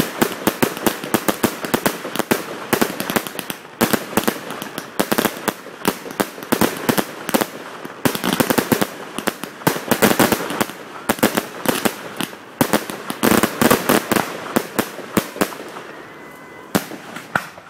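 Aerial fireworks bursting: a dense run of sharp bangs and crackling, thinning out and dying away near the end.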